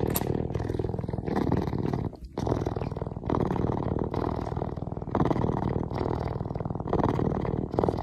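An animal growling in repeated rough pulses, about one a second, with a brief pause about two seconds in.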